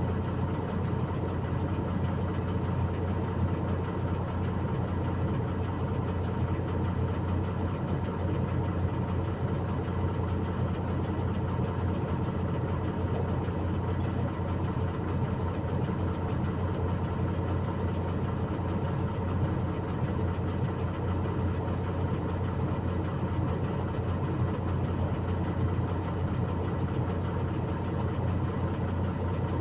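Truck engine idling steadily, a low, even drone.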